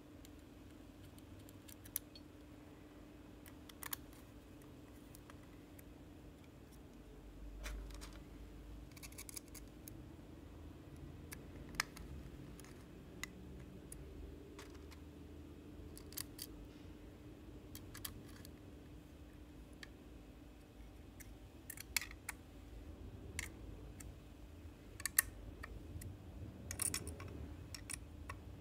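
Faint, scattered clicks and taps of small parts being handled while a Proxmark3 Easy circuit board is assembled: a plastic cover being fitted and small screws and standoffs turned. The clicks come more often in the last several seconds, over a steady faint hum.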